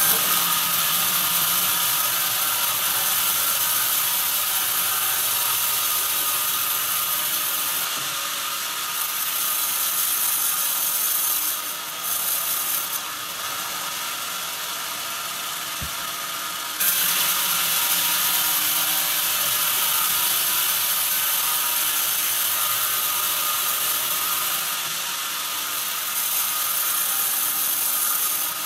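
Band saw blade cutting lengthwise through a squared hardwood timber on a sawmill carriage, giving a steady high-pitched rushing noise. The noise eases about eight seconds in, and a second cut starts abruptly at about seventeen seconds and eases again near the end.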